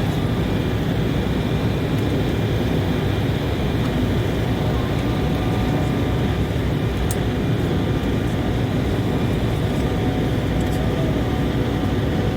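Steady cabin noise of an Embraer 190 airliner in flight: the hum of its twin GE CF34 turbofan engines and the rush of airflow, unchanging, with a few faint steady whines above it.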